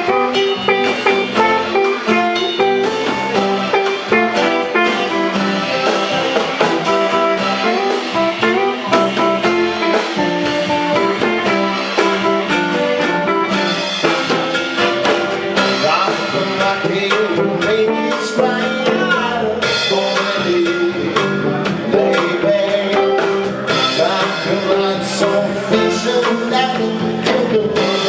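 Live band playing an African dance medley on electric guitar and drum kit.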